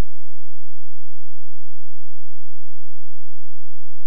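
A steady electronic tone holds evenly throughout, like a constant hum carried by the sound system.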